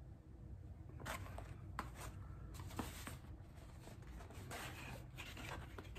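Cardboard box being handled and opened: faint, irregular rustling and scraping of cardboard with a few light clicks, starting about a second in.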